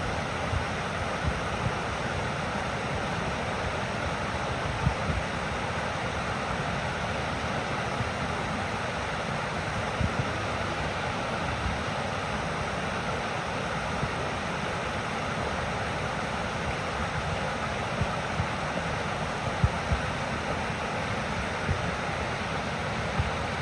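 Waterfall: a steady rush of falling water, with scattered brief low thumps.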